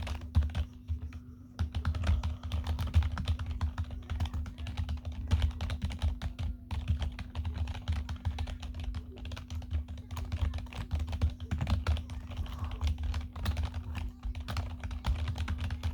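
Rapid, continuous typing on a low-profile, full-size Logitech USB keyboard: fast runs of key clicks, mashed as if 'hacking', with brief pauses about a second in and midway. A steady low hum sits underneath.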